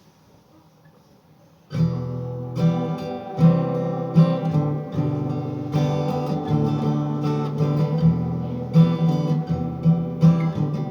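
Acoustic guitar begins about two seconds in after a faint start, playing chords in a steady rhythm as a song's instrumental introduction.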